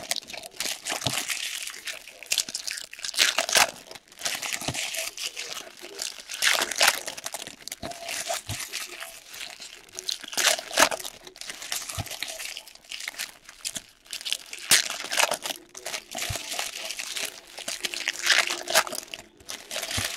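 Topps Chrome trading card pack wrappers crinkling as packs are handled and torn open. The crackling comes and goes, with louder crinkles every few seconds.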